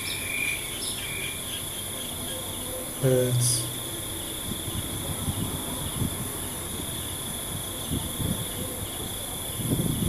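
Insects, crickets by the sound, chirring steadily and high-pitched, with a few short chirps in the first second or so and soft low scraping and rustling later on.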